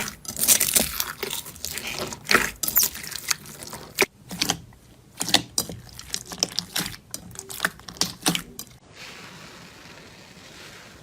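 A crunchy material being squeezed and crushed: a rapid, irregular run of sharp crackles and pops that stops suddenly near the end, leaving a faint steady hiss.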